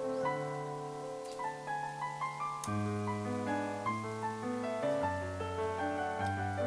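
Background piano music: a slow melody over held chords that change every couple of seconds.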